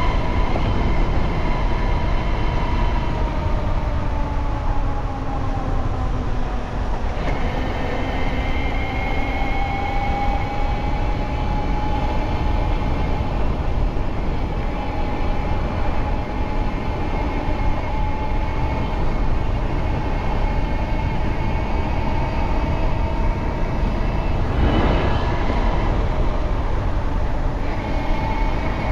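Bafang BBSHD mid-drive motor on 72 volts whining under power while riding. Its pitch sags a few seconds in, then climbs again as the bike speeds up. Heavy wind rush on the microphone sits under it, with a brief louder gust near the end.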